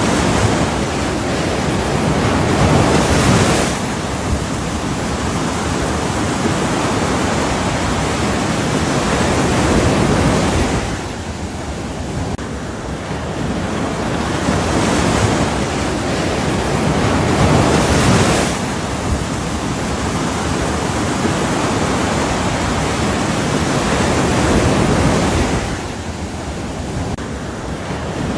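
Ocean surf: continuous noise of breaking and washing waves that swells and ebbs in slow surges about every seven or eight seconds, with quieter lulls between.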